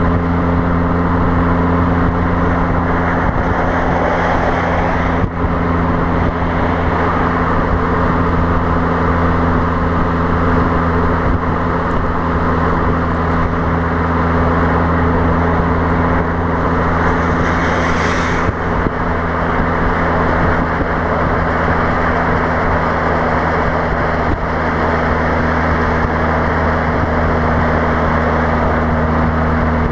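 Fiat Abarth 595's 1.4-litre turbocharged four-cylinder exhaust droning steadily at constant motorway cruising speed, with wind noise rushing over the rear-mounted microphone. A brief rise in hiss comes about two-thirds of the way through.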